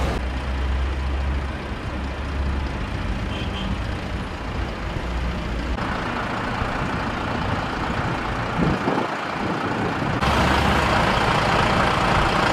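Heavy semi-truck's diesel engine running as it hauls a large boat on a multi-axle low-loader trailer, with road noise around it. The sound jumps louder and brighter about ten seconds in, as the tractor unit is close by.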